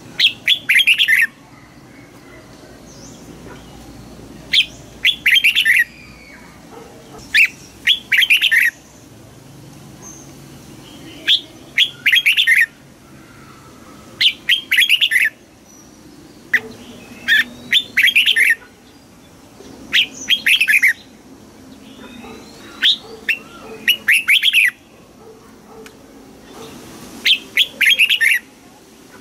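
Red-whiskered bulbul singing: short, loud, quick warbled phrases of about a second each, repeated every two to three seconds.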